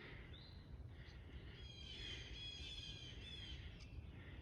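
Faint songbird song: a short high call early, then a quick run of high, repeated notes through the middle, over a low steady background rumble.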